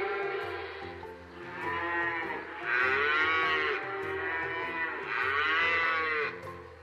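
Cows mooing: several long moos, each rising and then falling in pitch, the loudest about three seconds in and again near the end, over background music with a steady beat.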